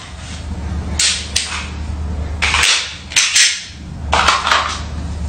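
Pretend gunshots from a toy-gun quick-draw game: short, sharp bang sounds in quick clusters, about a second in, again between two and a half and three and a half seconds, and around four and a half seconds.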